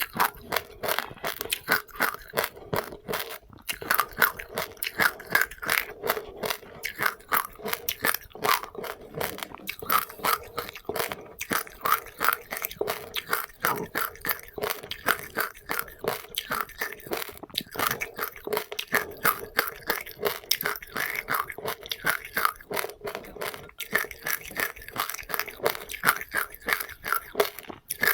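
Close-up chewing of seeds with passionfruit: rapid, continuous crunches, several a second.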